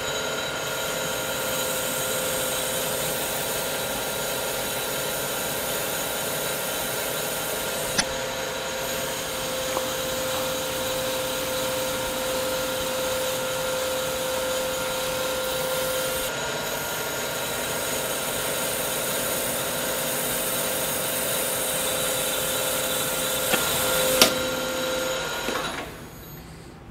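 Small lathe running while a CBN insert turns a tungsten carbide shank: a steady hiss with a high steady tone that drops out about midway and comes back later. There are two sharp clicks, one about eight seconds in and one shortly before the end, then the spindle is stopped and the sound falls away near the end.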